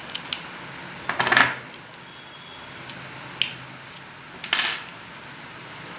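Small metal parts of a Hyundai i20 car lock clinking and clicking as they are handled and fitted together: a short click, a louder cluster of clinks about a second in, then a sharp click and a ringing clink in the second half.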